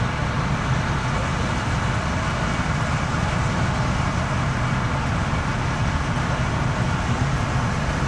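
Fiatagri-Laverda 3890 R rice combine harvester on steel tracks running steadily while harvesting rice: a continuous deep engine drone mixed with the noise of the header and threshing machinery.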